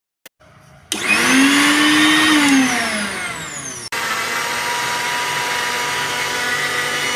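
Suruchi Elantra 800-watt mixer grinder running at high speed with a loud whining motor. Its pitch sags near the middle, then the sound breaks off abruptly and resumes as steady running.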